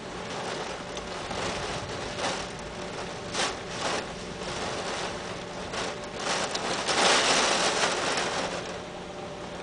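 Heavy rain falling steadily, with a couple of brief knocks about three and a half seconds in and a louder swell of rain around seven seconds in.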